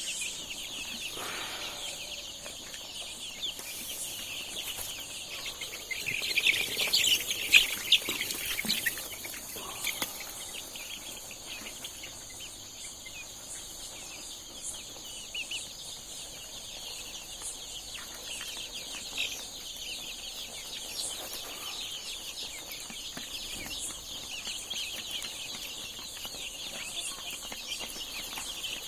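A flock of desi chickens calling together: a dense, continuous chatter of clucks and high cheeping, swelling to its loudest a quarter of the way in.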